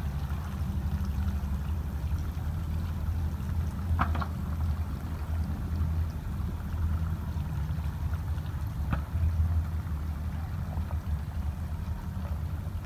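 Water running from a hose through a plastic colander of vegetables being rinsed, splashing onto wet ground and into a steel bowl, over a steady low rumble. Two short knocks, about four and nine seconds in.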